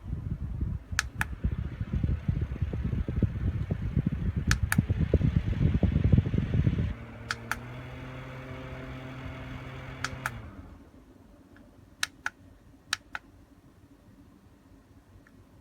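Small battery USB clip fan running at a high setting, its airflow buffeting the microphone with a low rumble. About seven seconds in it gives way to a steady motor hum, which winds down and stops a few seconds later. Sharp double clicks recur throughout.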